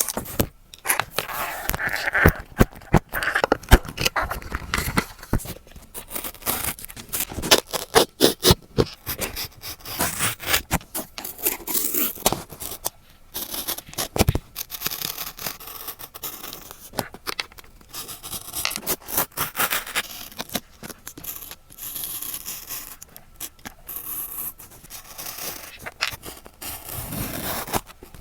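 Close-miked paper-craft sounds of a journal collage being made: paper and stickers scraping and rustling, with many sharp clicks and taps.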